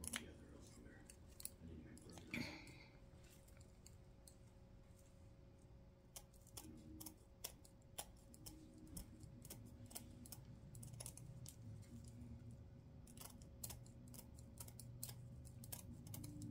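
Scissors snipping through silver mesh ribbon: faint, sharp clicks at irregular intervals, coming more thickly near the end.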